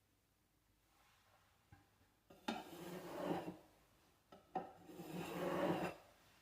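Two scraping strokes of a putty knife working spackle, each about a second long and each starting with a click.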